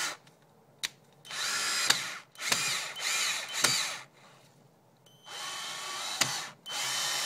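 Porter Cable 840 cordless drill, running on an 11.1-volt lithium polymer RC battery, driving a screw into a wood block without a pilot hole. The motor whines in several short bursts as the trigger is pulled and let go, its pitch rising and dipping under the load, with a few sharp clicks between bursts.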